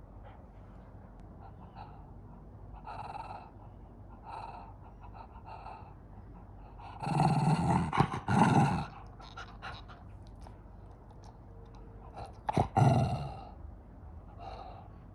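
A senior dog vocalising in short pitched sounds: a few soft ones at first, then a louder run lasting about two seconds midway and another loud one near the end.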